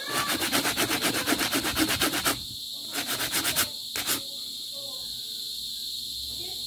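Quick back-and-forth hand rubbing along a twisted brass wire, about six scraping strokes a second, stopping after about two seconds, then a shorter run of strokes about three seconds in and one last stroke near four seconds. A steady high insect trill runs underneath.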